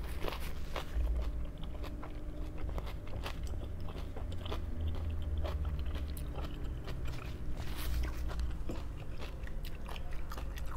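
A person chewing crunchy raw vegetables, with many short, sharp crunches at an uneven pace over the steady sound of the mouth working.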